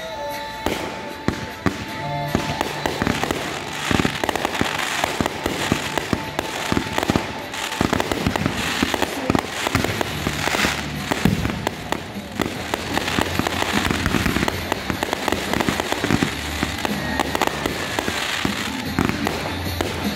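Fireworks display in full barrage: sharp bangs from launches and shell bursts follow each other in quick succession, with crackling between them.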